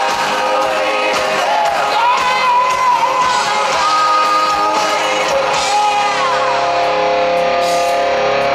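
Music with a singing voice and guitar; the voice holds long notes, one held through the last few seconds.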